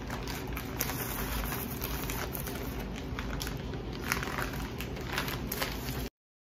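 Crinkling and rustling of a clear plastic bag of iridescent shredded Easter-basket filler being handled, full of small irregular crackles. The sound cuts off suddenly near the end.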